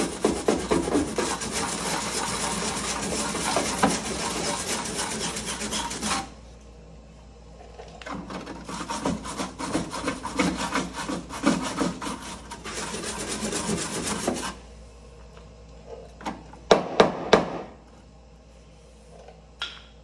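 Welding arc crackling as a steel plate is welded into a vehicle's floor. There are two runs of about six seconds each with a short pause between them, then three quick short bursts of welding near the end.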